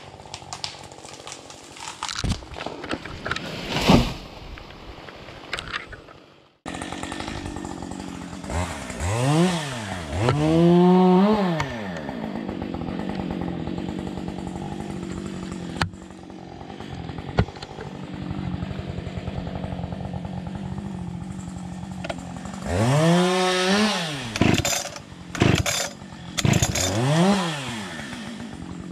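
Chainsaw running at idle and revved up in short bursts, four in two pairs, as it cuts into a pile of spruce branches. Before that, for the first few seconds, scattered knocks that end in a sudden break.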